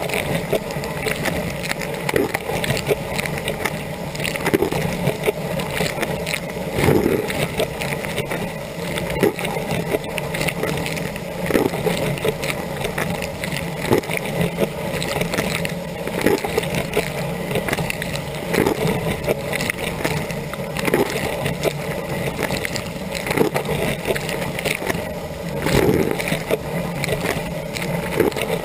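Dishwasher running a rinse cycle, heard from inside the tub: the wash pump's steady hum under a constant hiss of water spray, with a heavier splash about every two seconds as the rotating spray arm's jets sweep past.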